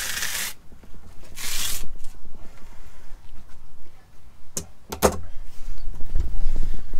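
Dolphinfish skin tearing away from the flesh as it is pulled off with multi-grips, in two short rasps. A few seconds later come a couple of sharp knocks of tools set down on a stainless steel bench, then a low thump.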